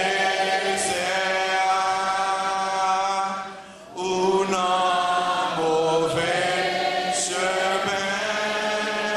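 A man singing a slow hymn into a microphone in long, held notes, in two phrases with a short breath about four seconds in, with a congregation singing along.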